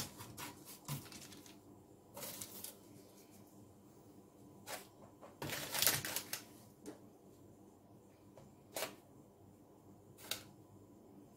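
Baking parchment rustling and crinkling in short, scattered bursts as hands fold and turn pastry on a lined baking tray, the loudest rustle about six seconds in.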